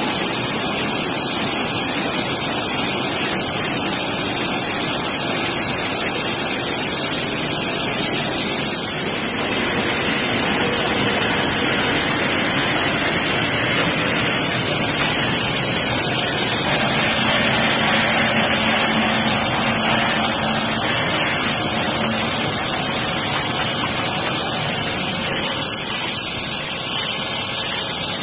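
Automatic rotary bottle rinsing and filling machine running: a steady, loud rushing hiss of water and air, with machinery noise underneath.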